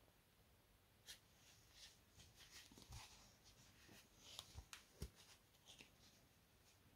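Faint rustling of thick cotton cord and light clicks of a large plastic crochet hook as single crochet stitches are worked, with a few soft knocks from handling the piece.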